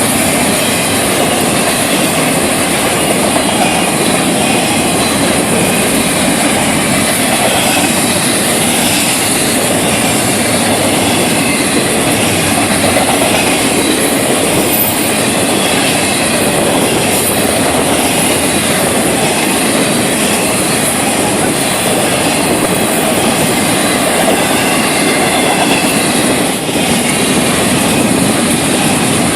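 Florida East Coast Railway freight train passing close by: a steady, loud noise of its cars' wheels rolling on the rails, without a break.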